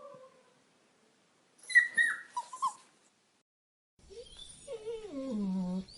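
Puppy crying and whimpering. A sharp high whine about two seconds in is the loudest part. After a pause, a longer cry falls steadily in pitch near the end.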